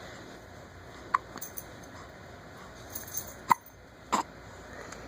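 A baby hiccupping: three short hiccups, the first about a second in and two more close together near the end.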